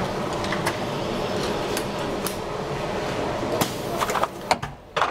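High-frequency plastic welding machine for medical urine bags running with a steady mechanical noise. From about three and a half seconds in come several sharp knocks, and near the end the running noise drops away.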